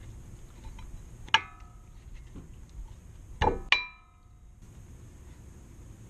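Metal clinking from tools and brake parts being handled: a sharp clink that rings briefly about a second in, then a dull knock followed at once by a second ringing clink a little past the middle.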